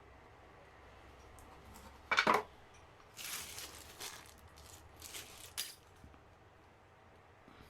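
Handling noises: a sharp knock about two seconds in, then a few short rustling scrapes.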